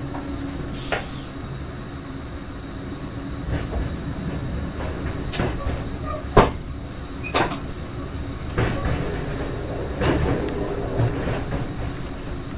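Electric train running along the track from the driver's cab: a steady low rumble broken by about seven sharp knocks, spaced irregularly, as the wheels cross rail joints and a set of points. A brief, falling high squeal comes about a second in.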